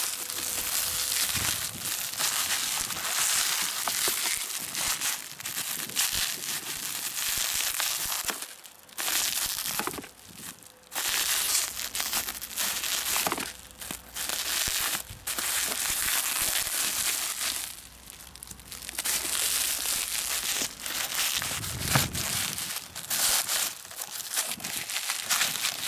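Plastic bag wrapping and packing tape crinkling and rustling in bursts with short pauses as a parcel is pulled open by hand. There is one low thud about three-quarters of the way through.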